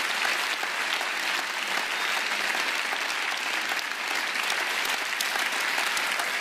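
A large seated audience applauding steadily: dense, even clapping from many hands that carries on without a break.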